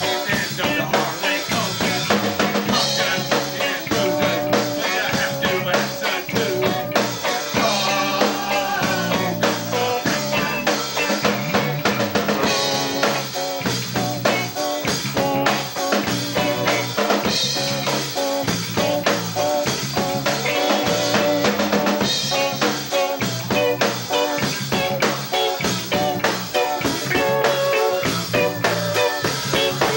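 Live rock band playing with electric bass, electric guitar and drum kit, over a steady drum beat.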